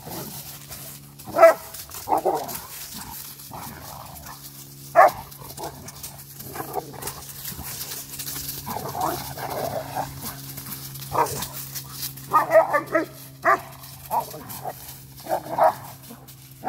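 A Bullmastiff and a Cane Corso playing rough, giving play growls and short barks in scattered bursts, with a busier run of them over the last several seconds. The growling is play, not aggression.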